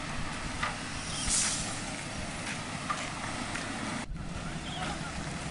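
Heavy diesel engines of trucks and a hydraulic excavator running steadily in a low rumble, with a short hiss about a second in. The sound drops out for an instant about four seconds in.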